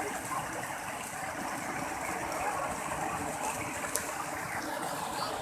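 Steady rush of flowing water, with a faint tick about four seconds in.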